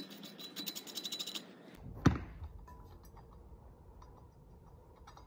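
Ratchet clicking rapidly as a Torx roller bolt on a snowmobile's secondary clutch is turned, then one loud sharp knock about two seconds in, followed by a few faint light ticks.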